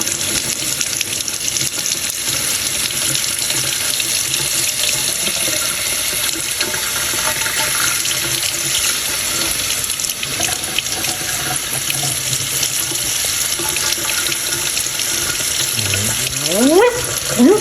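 Kitchen tap running steadily into a sink, an even rushing of water. A short rising sound comes in near the end.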